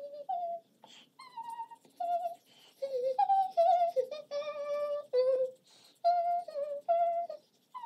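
A woman humming a high-pitched tune in short held notes, one after another.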